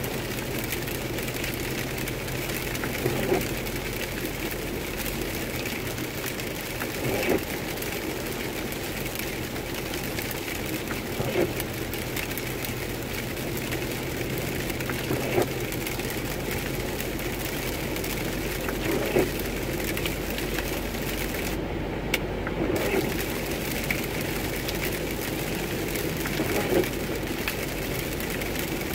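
Inside a car driving on a rain-soaked highway: steady tyre and road hiss with rain on the windshield, and a brief windshield wiper sweep about every four seconds.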